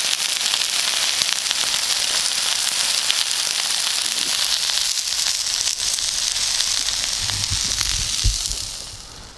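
Venison tenderloin steaks sizzling in a hot pan: a dense, loud hiss full of small crackles. A dull knock comes just before the sizzle fades away near the end.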